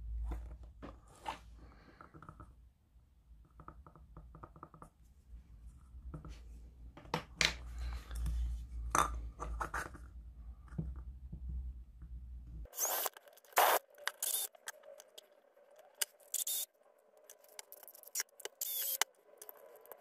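Small scraping, clicking and snipping sounds of hand work on a dismantled LED bulb and its wiring and plastic dome. Over a low hum at first; about two-thirds of the way through the hum stops and louder, sharper scrapes follow.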